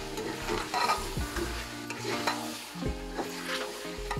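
Metal ladle stirring and scraping beef pieces in a metal pot as they fry in ginger-garlic paste, with repeated scrapes against the pot over the frying sizzle. Background music plays underneath.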